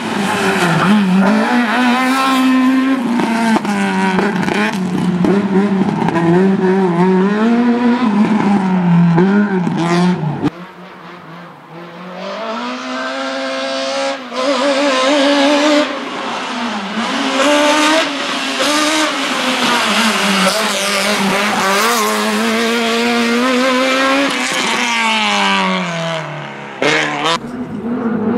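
Fiat 127 slalom car's tuned four-cylinder engine driven hard, its pitch climbing and falling again and again as it revs out and shifts gear. About ten seconds in the sound drops off sharply and quieter, then builds back up to full song; it dips briefly again near the end.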